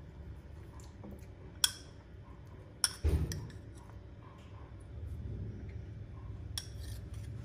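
Metal spoon clinking a few times against a ceramic bowl while scooping cooked chicken pieces onto a slice of bread, with a dull thump about three seconds in.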